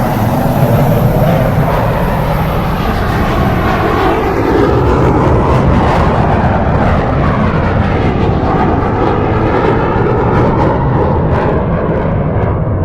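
Loud, steady engine noise of a fixed-wing airplane passing low on its landing approach, with a slowly shifting whoosh. The high hiss fades out over the second half as the plane moves away.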